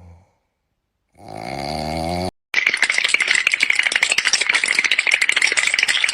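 Cartoonish snoring sound effect: a wavering, pitched snore about a second in, then a loud, fast rattling noise for the last three and a half seconds.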